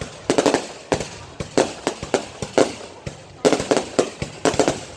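Fireworks exploding: sharp bangs and crackles coming in quick clusters, several a second.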